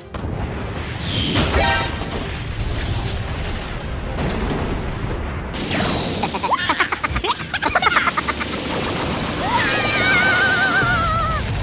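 Cartoon sound effects over a continuous low rumble: buzzing laser zaps about a second and a half in and again between about six and eight seconds, then wavering, warbling electric-shock tones near the end.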